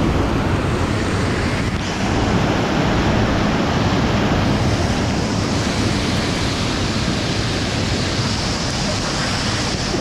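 Loud, steady rush of water from a tall waterfall, a continuous roar of falling water.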